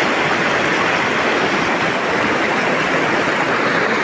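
Shallow mountain stream rushing over rocks in rapids, a steady, even rush of water.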